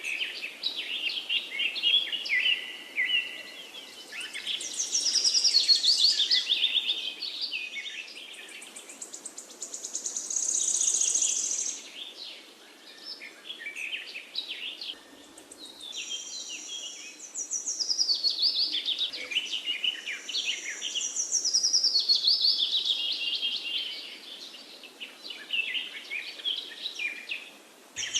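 Several songbirds singing, in overlapping phrases of fast descending trills and chirps. Now and then a high, even trill is held for a few seconds.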